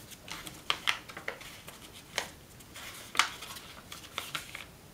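A square sheet of origami paper crackling and rustling as hands reverse-fold it and press the creases flat: a string of short, sharp crinkles, the loudest a little past the middle.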